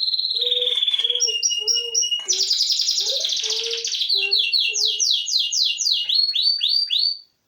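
A songbird singing a fast, varied song of quick downward-sweeping notes and trills, which cuts off abruptly near the end.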